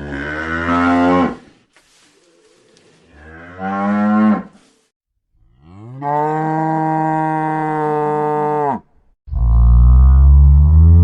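Kaiju roar sound effects from the Ultra series, one after another: two short pitched roars, then a long steady roar of about three seconds, then a deeper, louder roar starting near the end.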